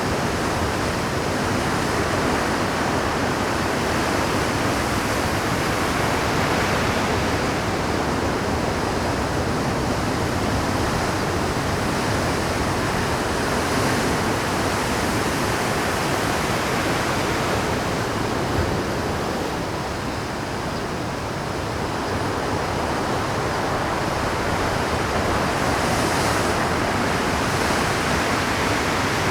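Rough Pacific surf breaking continuously against a rocky shore at high tide, a dense unbroken wash of crashing waves that eases slightly about two-thirds of the way through.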